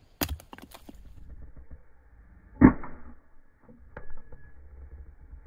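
A hatchet splitting kindling on a wooden chopping block: a sharp strike just after the start, the loudest strike a little past halfway, and a lighter one about four seconds in.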